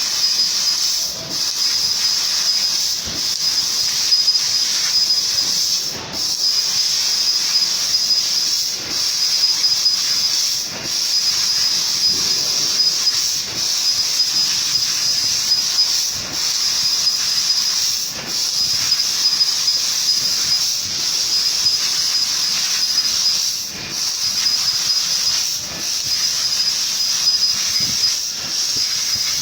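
CNC machine running: a steady, high-pitched hiss with a thin whine in it, dipping briefly every two to three seconds.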